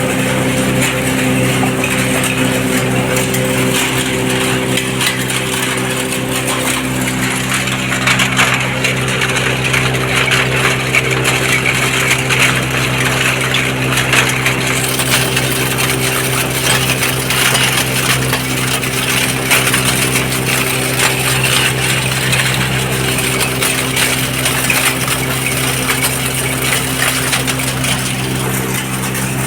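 Zinc ash grinding machine running: a steady electric-motor hum under a continuous clinking and rattling of hard metallic pieces tumbling inside it.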